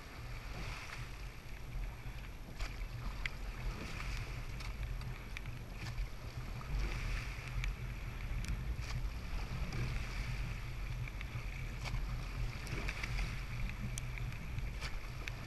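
Rowing eight paddling at about 20 strokes a minute: water rushing past the hull and blades swishing through the water, swelling about every three seconds, with scattered light clicks. Wind noise on the microphone.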